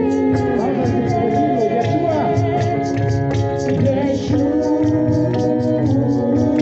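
Worship music with singing, over sustained keyboard chords and a steady drum beat.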